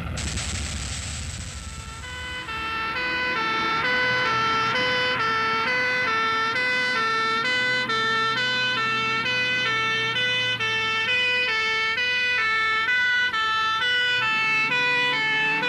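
Two-tone siren of a Shelvoke turntable ladder fire engine, switching evenly between two notes about twice a second, over the engine running. A brief rush of noise opens, before the siren starts.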